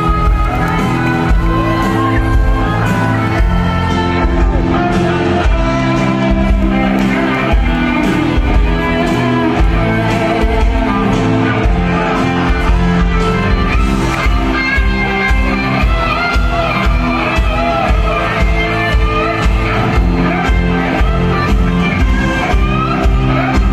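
Live band playing through a concert PA, heard from within the audience: a steady drum beat under guitars and a singing voice, with crowd shouting mixed in.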